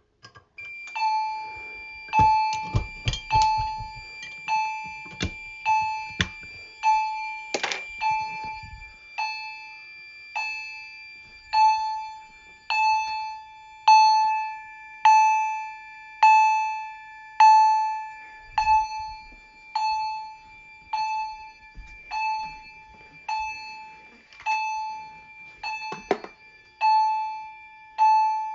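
Edwards Integrity chime strobe sounding in fire alarm after the pull station is pulled: a single chime tone struck about once a second, each strike ringing and dying away, over a steady high tone. Several clicks and knocks fall in the first several seconds, and another knock comes near the end.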